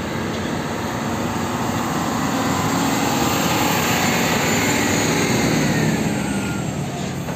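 Heavy fuel tanker trucks driving past on a road: steady engine and tyre noise that swells a little as the nearest truck goes by.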